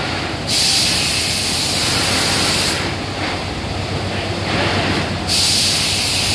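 Compressed air hissing in two long bursts of a little over two seconds each, from the pneumatic gripper of a robotic case packer. Under it runs the steady hum of the packing-line machinery.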